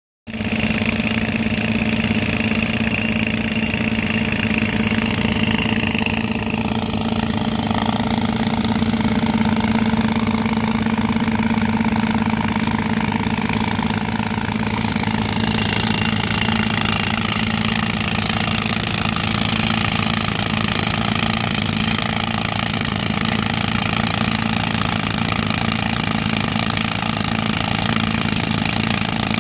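Pneumatic rock drill hammering steadily as it bores a blast hole into hard stone, over the steady running of the tractor engine that drives its air compressor.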